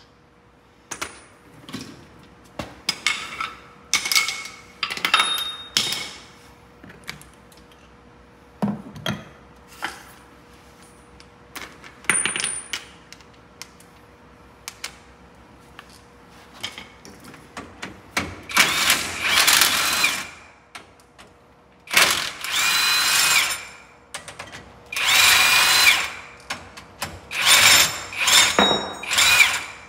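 Metal tools and parts clinking and clanking around a bus's front steering knuckle, then a handheld impact tool run in four bursts of one to two seconds each during kingpin removal.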